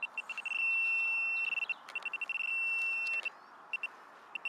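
Handheld metal-detecting pinpointer probing a clump of dug soil, giving a high electronic beep in quick pulses that run together into steady stretches of tone and cut in and out as it moves. This is the sign that it is homing in on a small metal target in the soil.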